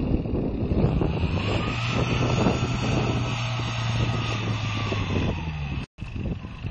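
Off-road vehicle engine running steadily, with wind buffeting the microphone. The sound cuts out abruptly for a moment near the end.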